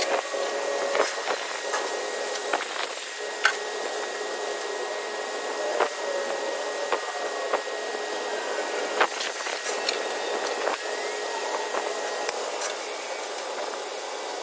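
Scattered light knocks and clicks over a steady hiss, as someone works at the rear of the lowboy trailer securing the load.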